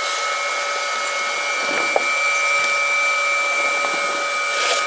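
Electric 12-volt air pump running steadily with a constant whine, inflating an inflatable boat. A short click about two seconds in.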